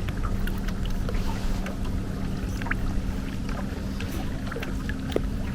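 Boat motor running with a steady low hum over a rumble of wind and water, with a few faint clicks.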